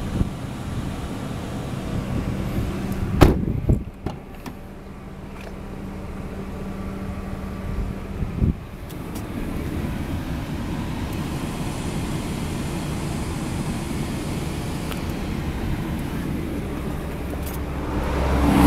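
Steady low hum inside a stationary 2005 Nissan Bluebird Sylphy's cabin, broken by a sharp thump about three seconds in and a few smaller knocks about eight seconds in. After that the hum steadies into a rumble that swells near the end.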